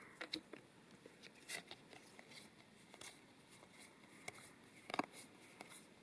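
Faint, scattered clicks and rustles of trading cards being handled and flipped, with a sharper click about five seconds in.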